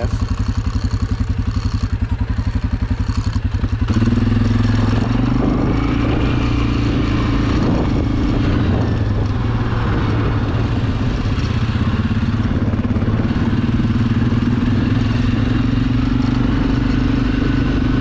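ATV engine running with an even low pulse at low revs, then about four seconds in it speeds up and runs steadily at higher revs as the quad rides along a gravel road.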